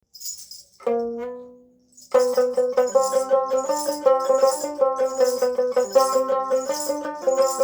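Dotara, the Bengali folk lute, plucked: a single note rings out and dies away about a second in, then from about two seconds a fast, steady run of picked notes starts the instrumental introduction.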